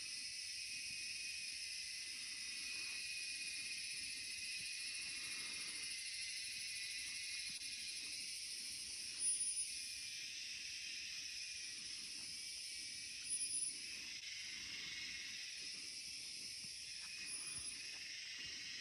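Steady, high-pitched chorus of rainforest insects buzzing in several layers. Three short, very high chirps stand out over it, about four seconds apart, in the middle and near the end.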